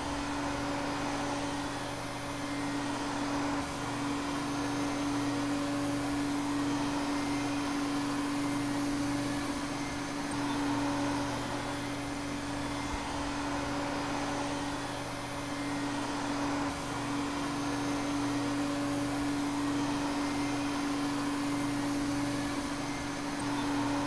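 Vacuum cleaner running steadily: a constant rush of air over a steady motor hum, holding one speed throughout.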